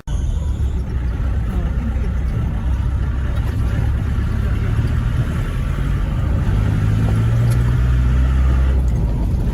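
Jeep engine running with a steady low rumble from the moving vehicle. It grows a little louder between about six and nine seconds in.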